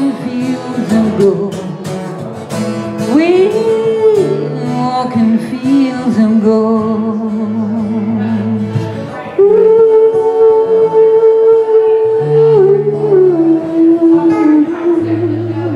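Live music: a woman singing long held notes with vibrato over acoustic guitar accompaniment. The loudest sustained note comes a little past halfway.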